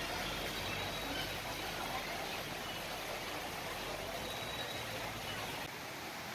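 Steady outdoor city ambience: an even hiss with a few faint whistle-like tones over it.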